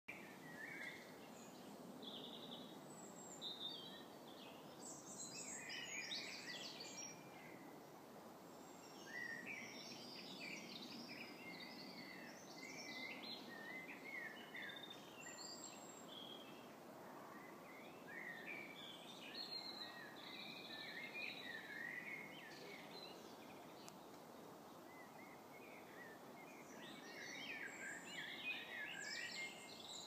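Several songbirds singing, with many short phrases following and overlapping one another, over a steady low background noise.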